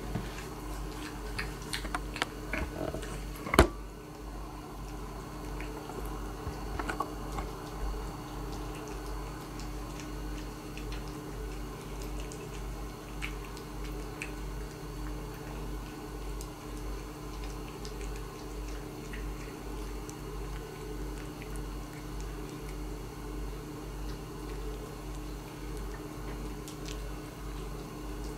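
A cat eating from a stainless steel bowl: small clicks and chewing sounds, with one sharp knock about three and a half seconds in, then only occasional faint ticks over a steady low hum.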